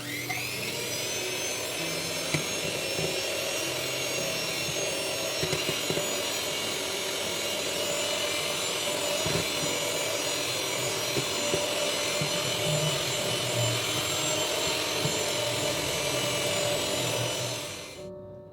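Electric mixer running at a steady whir while it beats gelatin into the cream cheese filling. It starts abruptly and cuts off shortly before the end.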